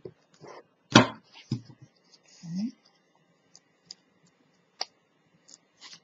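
Handling noises of a chipboard box and tape being pressed and moved on a cutting mat: a knock about a second in, then several lighter clicks and taps.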